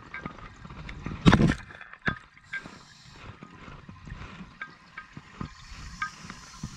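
Scuba breathing underwater through a regulator: a loud gurgling rush of exhaled bubbles about a second and a half in, then a softer hiss, with scattered small clicks.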